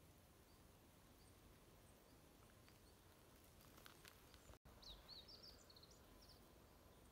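Near silence: faint outdoor ambience, with a few short, high bird chirps just after a cut about halfway through.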